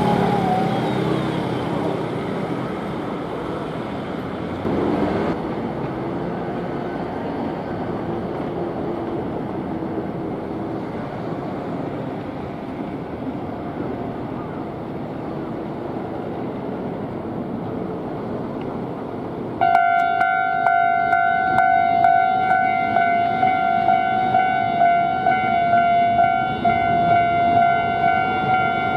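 Road traffic running past a Japanese railway level crossing, then about two-thirds of the way in the crossing's electronic warning bell starts and rings repeatedly at about two strikes a second, the signal that a train is approaching and the barriers are coming down.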